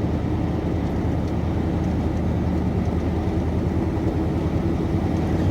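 Pickup truck's 5.7-litre V8 with a Cherry Bomb exhaust, running steadily while driving down the road, a low even drone that swells a little right at the end.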